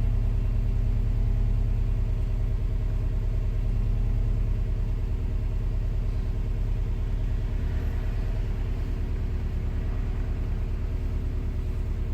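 2017 Subaru WRX STi's turbocharged 2.5-litre flat-four engine idling steadily, a low, even rumble heard inside the cabin.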